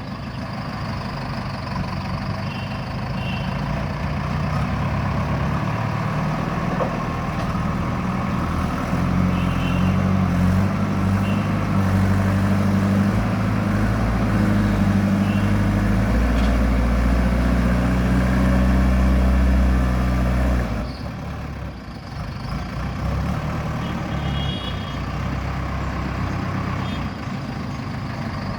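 Heavy construction machine's engine running under load, building up from about five seconds in, working hard for some seconds, then dropping back abruptly a little past the two-thirds mark. A few faint short high chirps sound over it.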